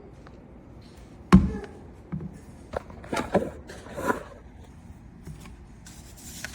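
Handling noises: one sharp knock just over a second in, then a handful of lighter knocks and short scrapes over the next few seconds.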